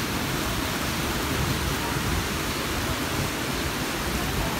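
Steady rush of water flowing over the low weirs of a stone-lined fountain channel.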